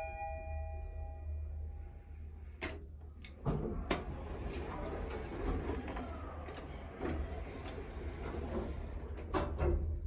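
Mitsubishi elevator chime sounding a two-note ding-dong, low then high, fading over about a second and a half: the up-direction chime. A few clicks follow, then a steady rushing noise with scattered knocks until near the end.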